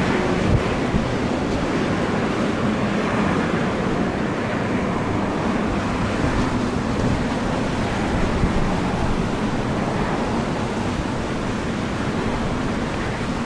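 Strong gusty wind blowing across the microphone, a steady loud rush of noise with a low rumble and no distinct events.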